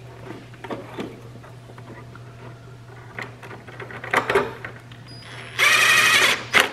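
Cordless power driver running for about a second near the end, driving in a bolt that holds the engine control module in place. Light clicks and knocks of parts being handled come before it, over a low steady hum.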